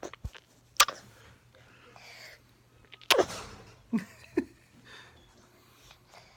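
Baby's mouth noises: a sharp tongue click about a second in, then a short vocal sound falling in pitch about three seconds in, with two small mouth sounds just after.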